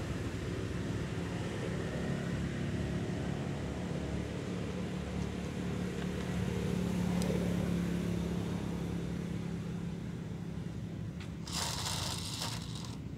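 Steady low engine hum of a motor vehicle, swelling about halfway through. A short burst of rustling noise comes near the end.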